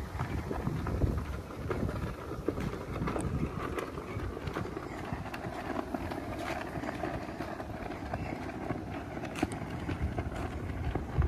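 Footsteps of someone walking on a concrete path, irregular light steps, over a low rumble of wind buffeting the microphone.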